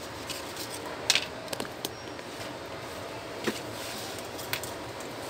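A plastic flat flex ribbon cable being handled and folded by hand: soft rustling with a few small crinkling clicks, the sharpest about a second in, over steady background noise.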